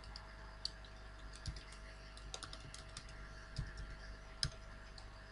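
Computer keyboard typing: faint, irregular key presses as a line of code is entered.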